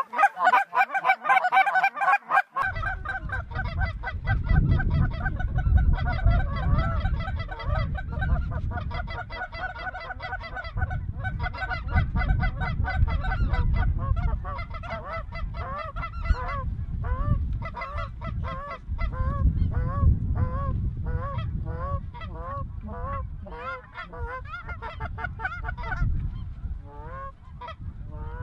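A flock of geese honking in flight overhead, with many calls overlapping in a continuous chorus. A low rumbling noise sits under the calls from a few seconds in.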